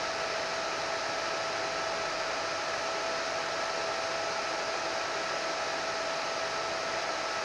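Hair dryer running steadily: a constant rush of air with an even whine over it.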